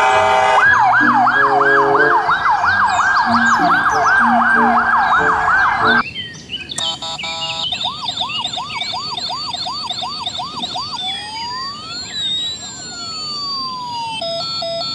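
Electronic ambulance siren. It wails up and down about three times a second, then cuts off abruptly about six seconds in. It switches to a faster yelp, then slow rising and falling glides, and near the end a two-tone hi-lo pattern.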